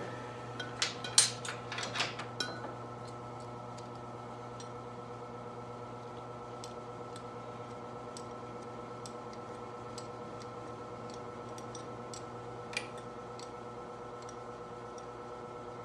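Metal hand tools clicking and clinking against engine parts several times in the first few seconds. After that a steady shop hum remains, with faint scattered ticks.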